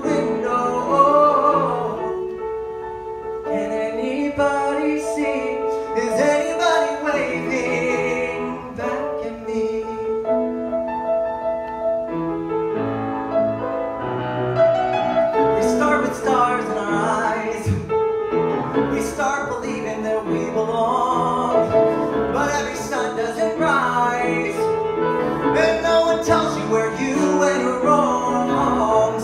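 Male tenor singing a musical-theatre ballad into a microphone, with live piano accompaniment.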